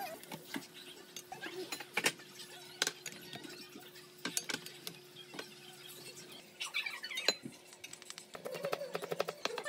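A wooden spatula scrapes and knocks against a nonstick frying pan while a pork stir-fry is tossed with onion and green onion, over a steady low hum. Near the end come quick light clinks of a spoon against a glass bowl.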